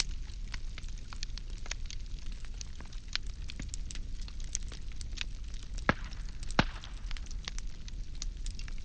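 Firewood burning, with a steady low rumble and hiss and irregular sharp crackles and pops, two of them louder about six and six and a half seconds in.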